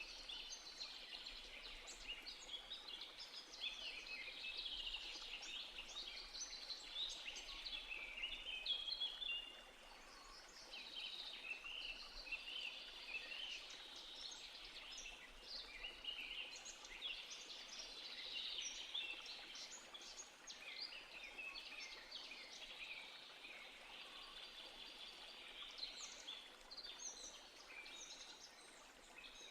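A chorus of many small songbirds chirping and singing at once, their short calls and trills overlapping densely, with a slight lull about a third of the way in.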